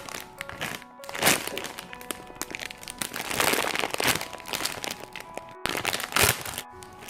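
Plastic packaging crinkling and rustling in repeated bursts as it is handled, over background music.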